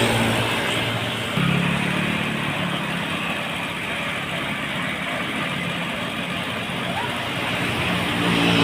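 Road traffic noise with a heavy vehicle's engine running, a low steady drone that strengthens about a second and a half in and again near the end.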